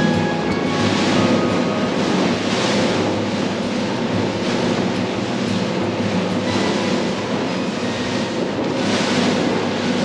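Boat running at speed: a steady engine drone under a rush of water and spray off the hull that swells and eases.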